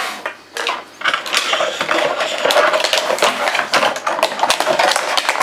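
Clear plastic packaging bag crinkling as it is handled, a dense crackle that turns continuous about a second in.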